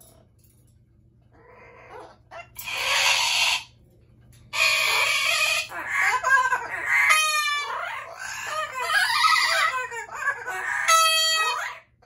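Amazon parrots calling loudly. After a short quiet they give a run of harsh screeches and warbling squawks, with two sharper calls, one about halfway through and one near the end.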